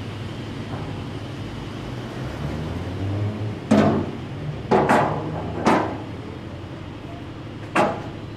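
Five loud, sharp knocks at irregular intervals, two of them in quick succession, over a low steady hum.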